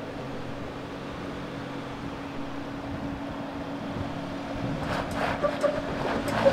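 Ford Bronco's engine running steadily at low revs as it crawls up a slickrock ledge. From about five seconds in, a few short sharp pitched sounds come in over it.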